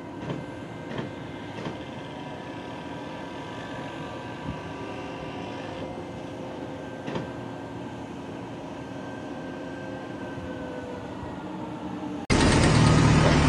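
Steady mechanical running sound with a few faint steady whining tones and occasional sharp clicks. Loud background music cuts in abruptly near the end.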